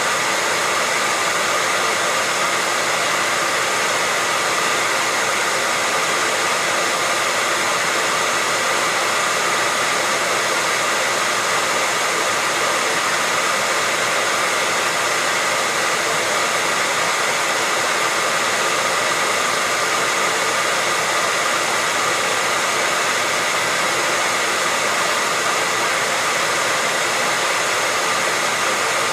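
Hair dryer running steadily, a constant rush of blown air with a faint steady whine from its motor.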